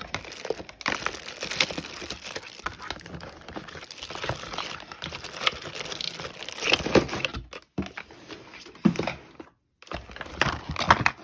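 Packaging being handled and opened by hand: irregular crinkling, rustling and small clicks, with two brief drops to silence in the second half.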